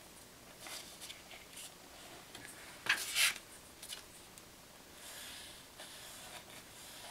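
Paintbrush rubbing lightly over an old hardback book cover in a few short, scratchy strokes, the loudest two about three seconds in: dry-brushing paint into the spine creases.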